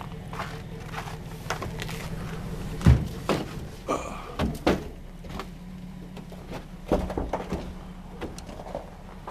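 Footsteps on frozen ground strewn with pine needles and patches of snow: irregular steps roughly every half second, the heaviest thud about three seconds in, over a steady low rumble.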